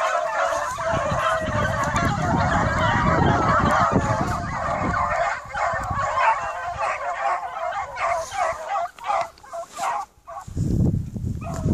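A pack of hunting hounds baying together, many voices overlapping in a continuous chorus, thinning into separate cries near the end and briefly dropping out. A low rumble runs underneath.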